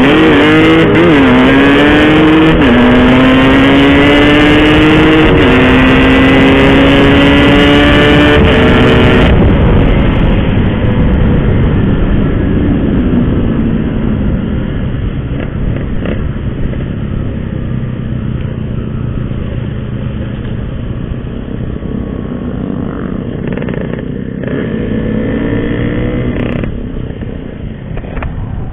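Yamaha RX-King's two-stroke single-cylinder engine accelerating hard through the gears, its pitch climbing with a sharp drop at each shift, for about the first nine seconds. Then the throttle closes and the engine runs quieter and lower as the bike slows.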